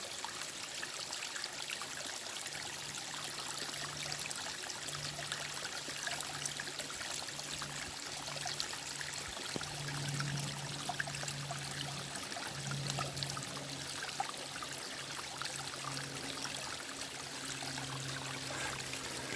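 Small mountain stream running down over rocks, a steady rush and trickle of water, with a faint low drone underneath.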